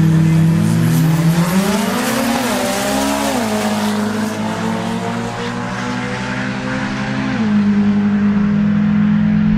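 Two drag-racing cars launching from the starting line and accelerating down the strip. Their engines run steady for about a second, then rise in pitch, dropping sharply at gear shifts about three seconds in and again about seven seconds in.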